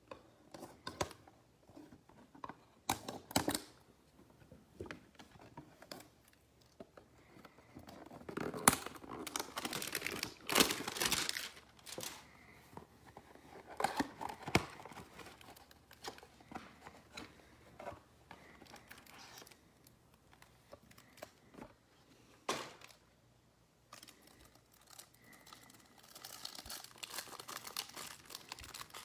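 Wrapping and foil card packs from a 2020 Prizm Football box being torn open and crinkled by hand, in irregular bursts of crackling and tearing. It is busiest in the middle and again near the end.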